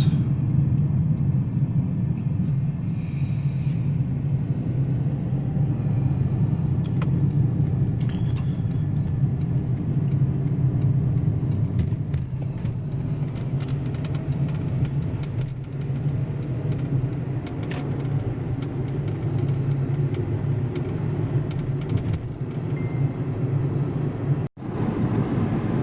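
Steady low rumble of engine and road noise heard from inside a moving vehicle, with faint scattered rattles.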